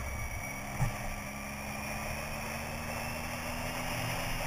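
Motorcycle engine running steadily under way, its note rising slowly, with wind rushing over the camera microphone.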